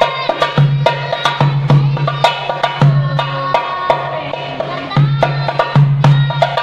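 Darbuka (goblet hand drum) played by hand in a quick repeating rhythm: deep bass strokes from the centre of the head mixed with many sharp, high taps near the rim.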